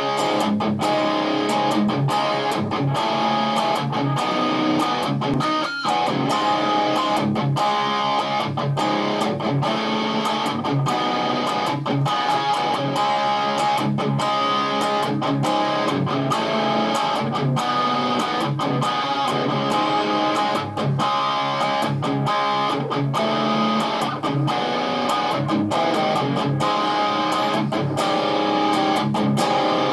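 Electric guitar through an Orange Micro Dark amp head and Orange 1x12 cabinet, playing hard-rock riffs with distorted, chugging chords and short stops between strokes, with added reverb.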